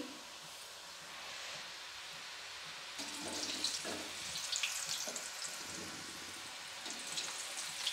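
Kadbole dough rings sizzling steadily as they deep-fry in hot oil in a kadhai. About three seconds in, a slotted spoon starts moving them through the oil and the sizzle turns busier, with many short crackles.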